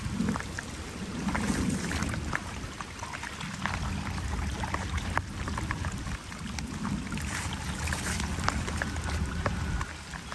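Flood water running and gurgling, with a low rumble and many small scattered splashes and clicks.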